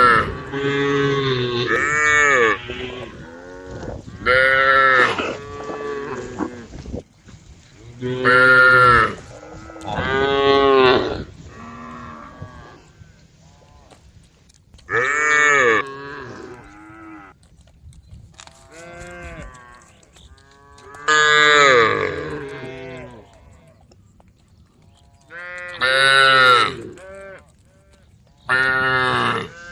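Cattle mooing in turn: about nine loud, drawn-out moos a few seconds apart, with quieter lowing between them, as the cows call to the herd.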